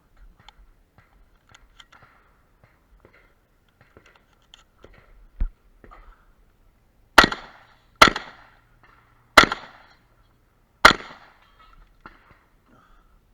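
Four shotgun shots, about a second or a second and a half apart, after a stretch of faint clicks and rattles from the gun being handled.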